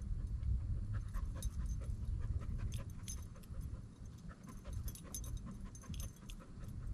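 A dog panting, with scattered light clicks over a steady low rumble.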